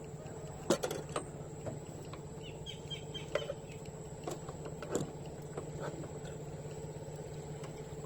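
A steady low hum under scattered light clicks, with a few short high chirps around the middle.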